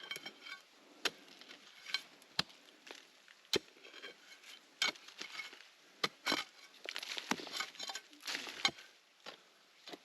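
Irregular sharp knocks and clicks of a hand tool striking stones and earth, with stretches of scraping and rustling in the second half, as soil and rock are worked loose.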